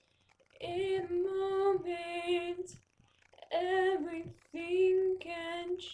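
A young woman singing unaccompanied: two sung phrases with a wavering pitch, the first starting just over half a second in and the second about three and a half seconds in, with a short silent gap between them.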